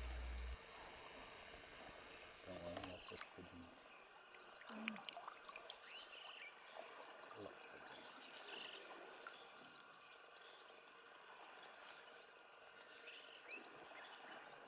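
Faint steady high-pitched drone of insects, with a few faint short calls and small clicks scattered through it.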